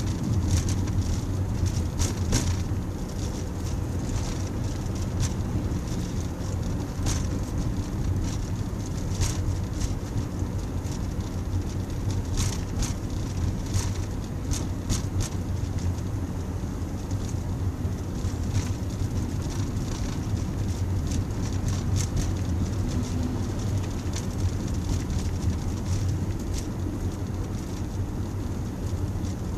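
Steady low rumble of a car's engine and tyres on the road, heard from inside the cabin while driving, with scattered light clicks.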